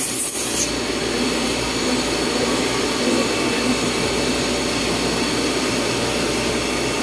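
CNC milling machine running steadily through a cut, a continuous machining noise with a steady hum; a high hiss at the start cuts off about half a second in.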